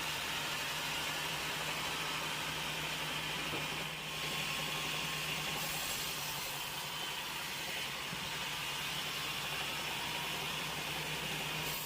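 Sawmill machinery running steadily: an even engine-like hum with a hiss over it, briefly dipping about four seconds in.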